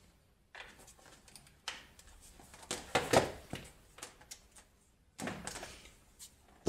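Power cables and a plastic power-supply brick being handled and set down on a hard floor: scattered light knocks, clicks and rustles, the loudest cluster about three seconds in.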